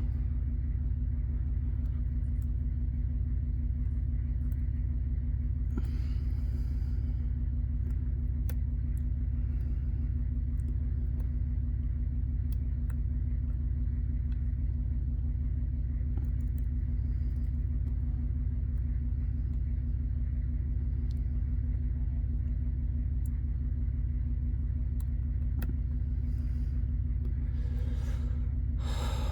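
Steady low drone, with a few faint, scattered ticks of a lock pick working the pins of a Bi-Lock-style lock.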